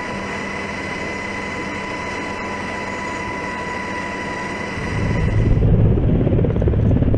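Helicopter heard from inside the cabin: a steady turbine and gearbox whine with two held tones over rushing noise. About five seconds in, the sound changes to the rhythmic rotor beat of a Black Hawk-type helicopter hovering low over water.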